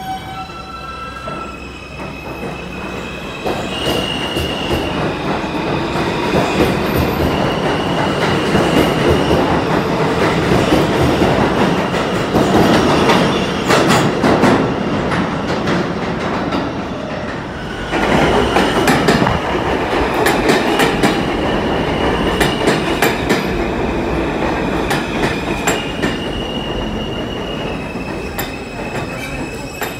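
New York City subway trains running through an underground station: a steady rumble of steel wheels on rail, clicking over rail joints, and high steady wheel squeal that comes and goes. The noise swells about three seconds in and dips briefly a little past halfway.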